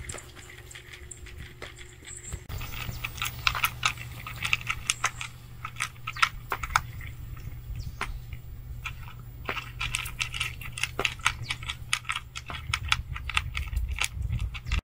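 A cat crunching dry kibble from a plastic tray: irregular sharp crunches and clicks starting about two and a half seconds in, over a low steady rumble.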